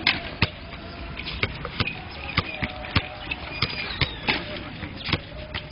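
Basketballs bouncing on a hard court, about a dozen sharp, unevenly spaced bounces.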